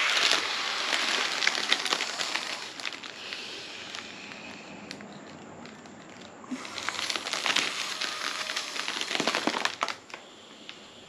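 Breath blown through a straw into a foil letter balloon in two long blows, the thin foil crinkling and crackling as it fills, with a quieter pause between the blows.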